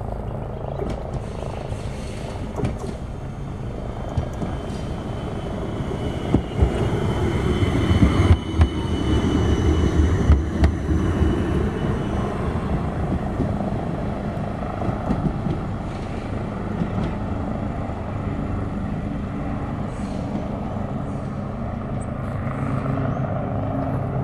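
Melbourne D1-class Combino tram running past on ballasted track: a low rumble of wheels on rail that grows loudest about eight to eleven seconds in, with a few sharp clicks and a faint high whine as it passes, then a steadier hum as it draws away.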